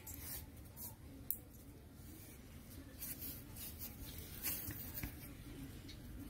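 Faint scratching and scuffling of puppies' claws and paws on a tiled floor as they play, with a sharp tick a little over a second in.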